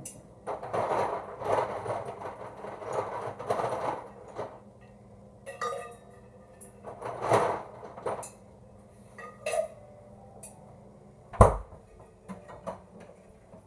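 Handling noises close to the microphone: about three seconds of rustling, then scattered clicks and knocks, and one sharp thump of something set down hard on the table near the end.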